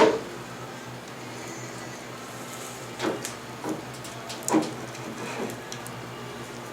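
A few scattered knocks and clunks, the sharpest right at the start, over a steady low hum.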